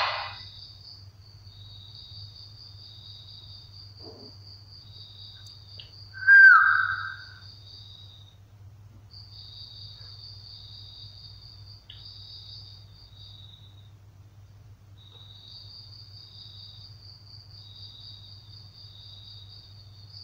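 Crickets chirring steadily over a low electrical-sounding hum, with one loud, short, high-pitched cry or squeak about six seconds in.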